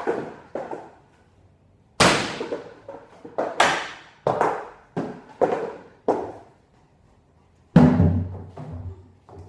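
A series of loud, irregular bangs, each ringing briefly before fading, made as distraction noise in a dog's noise-desensitization drill. They come in quick clusters, and after a pause one last loud bang lands near the end.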